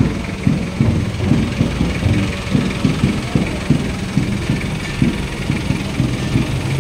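Vehicle engine idling: a low, uneven rumble of irregular pulses.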